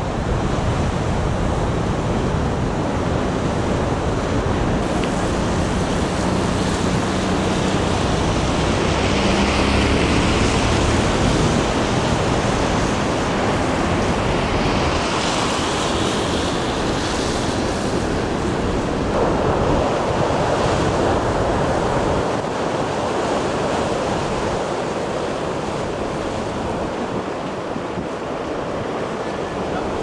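Storm waves on the Black Sea breaking, a continuous rush of surf and spray with wind buffeting the microphone. Louder hissing surges come about ten and sixteen seconds in, and the low rumble eases about halfway through.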